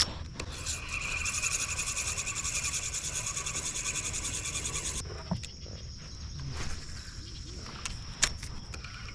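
Insect chorus in flooded woods: a loud, fast-pulsing high buzz that stops suddenly about five seconds in, over a thin steady high trill from other insects. A couple of sharp clicks, the loudest near the end.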